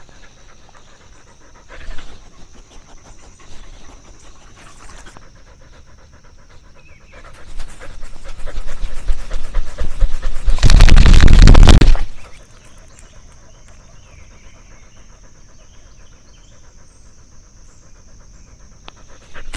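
A dog panting right at a camera strapped to its body. Just past the middle a much louder rough, rubbing noise builds over a few seconds and then cuts off suddenly.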